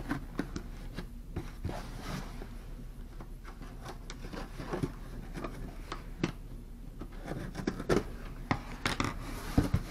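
A shipping parcel being opened by hand: scattered rustling, scraping and clicking of the packaging, busier near the end.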